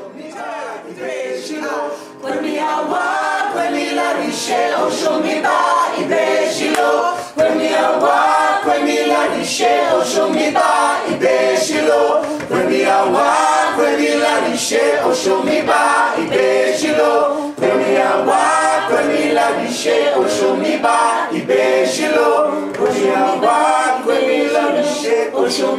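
A small group of mostly male singers singing together in parts, an ensemble vocal exercise. It starts softly and grows louder about two seconds in, then holds steady.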